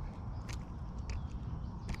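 A freshly caught bluegill flopping and slapping against the plastic kayak and the angler's hands: three sharp taps, under a steady low rumble.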